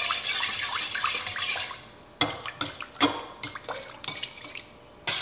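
Water running from a kitchen tap, then a spoon and utensils clinking and knocking against mixing bowls, then the tap running again near the end.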